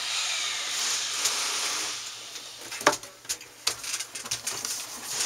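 An air-conditioning unit scraping as it is slid and pushed back into its wall opening, followed by a sharp knock about three seconds in and a run of lighter knocks and clicks as it is seated.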